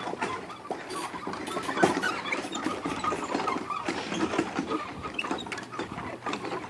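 Old bridge creaking and squeaking: a dense run of short, irregular creaks and clicks over a steady low hum.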